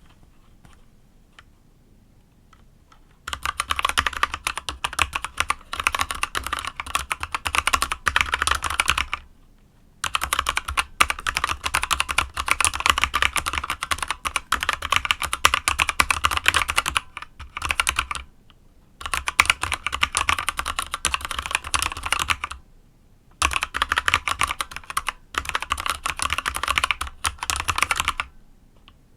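Fast typing on a Motospeed CK61 mechanical keyboard fitted with unlubricated Kailh Box Dark Yellow linear switches: a rapid stream of key clacks. It starts about three seconds in and comes in runs of several seconds with short pauses between them.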